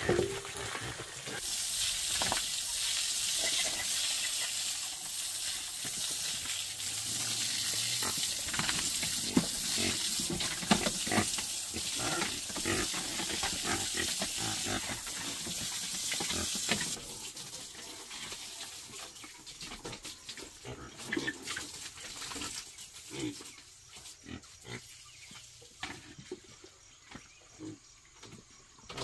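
Pigs feeding, with many short wet clicks of eating, over a steady hiss that stops suddenly about two thirds of the way through; after that the eating sounds go on, fainter and scattered.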